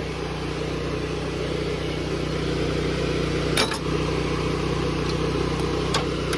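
Steady drone of an engine running on the pressure-washing rig. A click comes about three and a half seconds in, and a few short metallic clicks follow near the end as stainless hose fittings are worked with a wrench at a bench vise.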